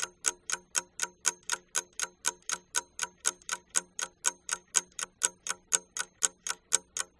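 Fast, even ticking like a clock, about four crisp ticks a second.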